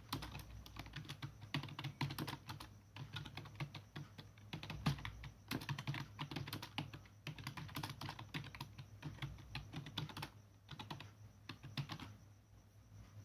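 Rapid touch-typing on a computer keyboard: fast, uneven key clicks that thin out near the end as the line is finished.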